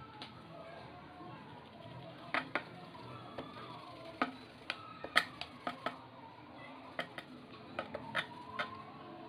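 About ten light, sharp clicks and taps at irregular intervals over a faint background, with a cluster in the middle.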